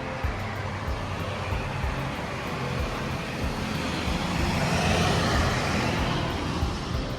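A road vehicle passing by: its noise swells to a peak about five seconds in, then fades.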